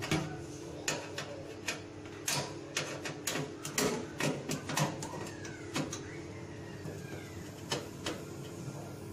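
Screwdriver working a screw on the sheet-metal cover of an air conditioner unit: a run of irregular sharp clicks and taps, over a steady low hum.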